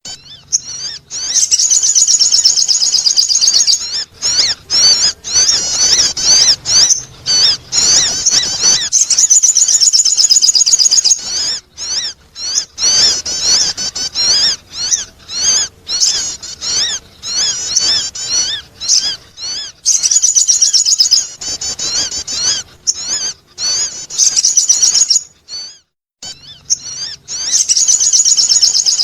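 Sogon bird song used as a lure call: rapid, high-pitched twittering chirps in long runs broken by short pauses.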